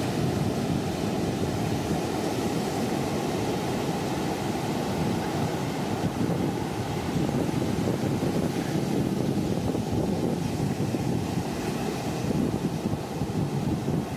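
A fishing boat under way at sea: its engine runs steadily, mixed with the wash of waves and wind buffeting the microphone.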